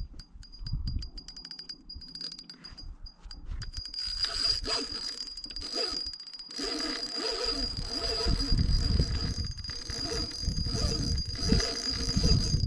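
Spinning reel's drag buzzing as a big sturgeon pulls line off it, a high-pitched whine that comes in short spurts at first and runs unbroken from about four seconds in.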